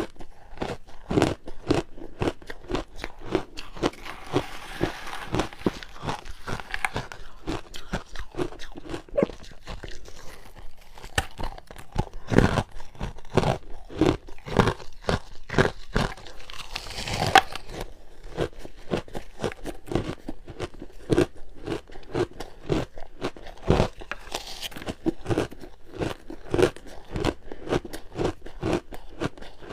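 Ice being bitten and chewed close to the microphone: a steady run of sharp, rapid crunches, several a second, with a few louder bites.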